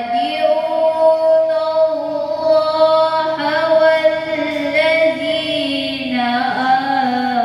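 A woman chanting Qur'anic recitation in Arabic into a microphone, in long, melodic, held notes with ornamented turns; a new phrase begins about six seconds in.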